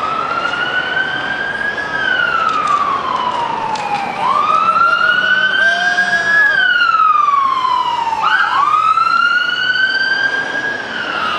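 Siren on a slow wail, its pitch rising and falling about every four seconds, three times over. It grows louder toward the middle and eases off near the end.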